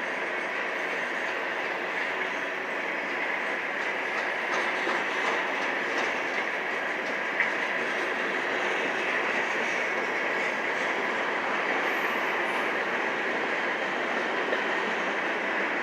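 Train passing, a steady rumble and hiss of steel wheels on the rails with faint clicks from the rail joints.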